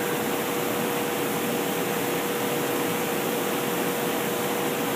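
Steady running noise of a magnetic particle inspection bench turning an axle during inspection: an even hiss with a constant mid-pitched hum.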